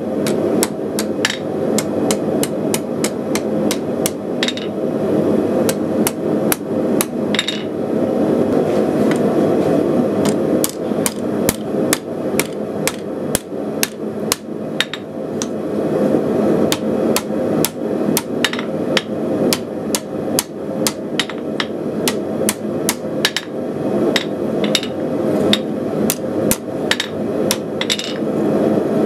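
Blacksmith's hammer striking a red-hot steel bar on an anvil, bending a hook: runs of sharp blows, about three a second, with short pauses between runs, over a steady rushing noise.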